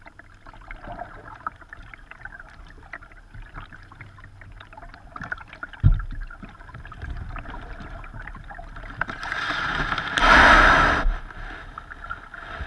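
Kayak paddling with small splashes and water lapping at the hull, and a single knock about six seconds in. Near the end the hull scrapes up onto a sandy riverbank for about a second and a half, the loudest sound here.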